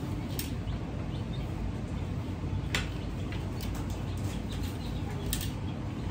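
Plastic Connect Four checkers clicking as they are handled and dropped into the grid: a handful of short sharp clicks, the loudest a little under three seconds in, over a steady low hum.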